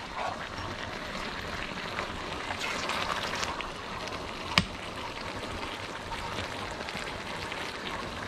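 Noodles, cabbage and meat sizzling in a hot wok as a spatula stirs them, with one sharp clink of the spatula against the wok about halfway through.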